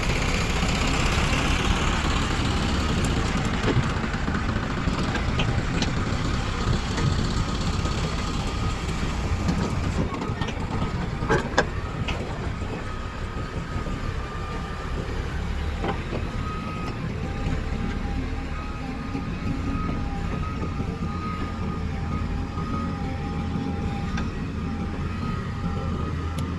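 Diesel engines of a JCB 3DX backhoe loader and tractors running steadily, with a sharp knock about 11 seconds in. From about halfway, a repeated beeping, typical of a reversing alarm, sounds over the engines.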